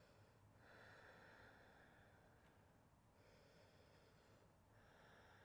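Very faint, slow breathing: several long, soft breaths drawn in and let out, each lasting about a second and a half.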